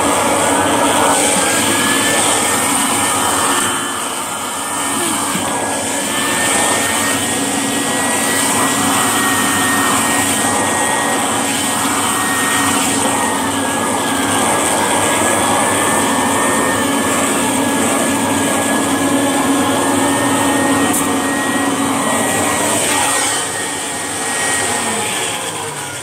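Vacuum cleaner running steadily over carpet with a high motor whine. Near the end it is switched off and the motor winds down, its pitch falling away.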